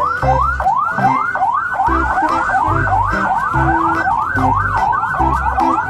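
Police car siren in a fast yelp, its pitch rising and falling several times a second without a break.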